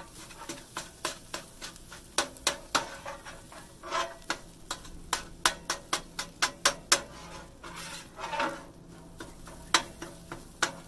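Steel griddle scrapers chopping cooked chicken on a Blackstone griddle's hot steel plate: sharp metal clacks in quick irregular runs, with a few scrapes and food sizzling underneath.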